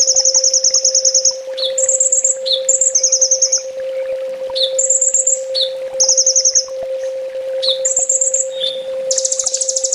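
Kolibri ninja sunbird singing: fast, high-pitched trills repeated over and over, each about half a second to a second long, broken by short lower chip notes. A steady low hum runs underneath.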